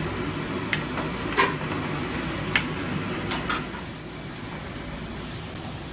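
Metal ladle clinking against a thin yellow aluminium pot while stirring bubbling stew over gas burners: a handful of sharp clinks in the first three and a half seconds, over a steady hiss that drops a little after about four seconds.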